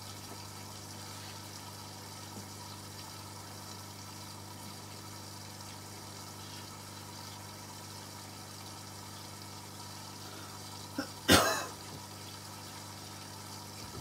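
Hotpoint Liberator 1826 washing machine filling for its last rinse: water running in through the drawer and down into the drum, over a steady low hum. One short, loud knock about eleven seconds in.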